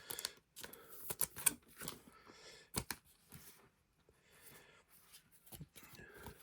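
Pokémon trading cards being handled and slid across one another, a string of irregular soft clicks and rustles, quieter for a second or so midway.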